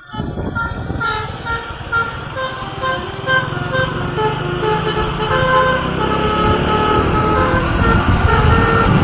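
A basuri 'telolet' musical vehicle horn playing a tune of short, stepped notes over the vehicle's running engine. It gets somewhat louder toward the end.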